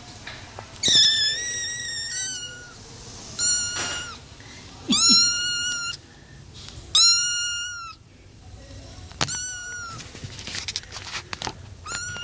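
Kittens meowing repeatedly: about six high-pitched meows, some short and some held for about a second.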